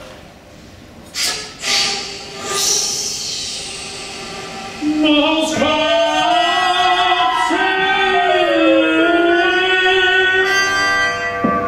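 Contemporary classical music for tenor voice and wind instruments (basset-horn, flute, trumpet). A few short breathy, noisy sounds are followed about five seconds in by several held tones that overlap, one slowly gliding up and another sliding down.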